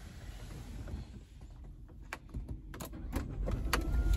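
Low car engine rumble inside the cabin, with several sharp clicks and knocks from handling the dashboard controls. The rumble grows louder about three and a half seconds in.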